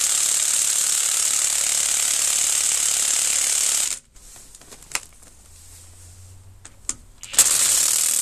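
Draper Expert 20 V brushless 3/4-inch cordless impact wrench hammering at full throttle on a lorry wheel nut, undoing it. The hammering stops suddenly about four seconds in, a couple of sharp clicks follow, and a second burst of hammering starts near the end as it goes onto the next nut.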